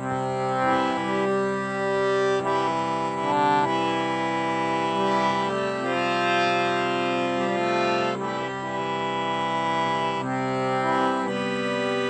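Indian hand-pumped harmonium, a free-reed keyboard, playing a slow hymn melody in chords over a sustained low note, its reedy tone steady as the bellows are worked.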